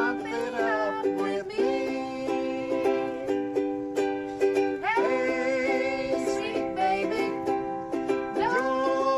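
Ukulele strummed in steady chords, with a woman's voice singing along in held notes that slide up into pitch.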